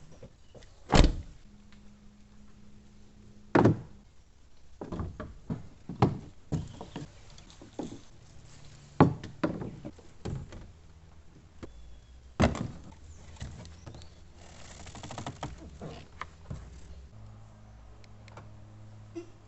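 Irregular knocks and thuds: loud single knocks about a second in, near four seconds, near nine seconds and near twelve and a half seconds, with many lighter taps between them.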